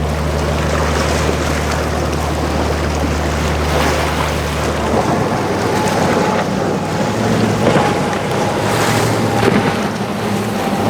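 Motorboat engines running over wind buffeting the microphone and the wash of waves. About five seconds in, the deep low hum drops away and a higher steady engine note takes over.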